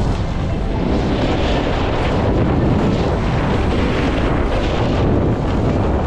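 Loud, steady wind rushing over the microphone of a camera carried by a skier moving downhill.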